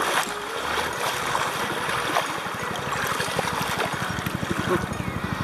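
Lake water splashing under a swimmer's strokes, with the fast, even chop of a helicopter's rotor coming in about halfway through and continuing.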